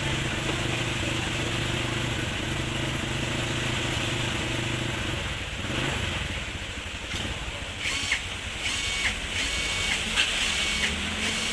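A motor hums steadily for about five seconds, then stops. Later come several short, high-pitched tones in a row.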